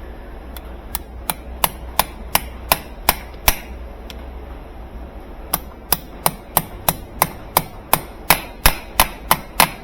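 Hammer tapping a new washer motor coupling onto its shaft to seat it flush: two runs of sharp, evenly spaced taps, about three a second, with a pause of about two seconds between them.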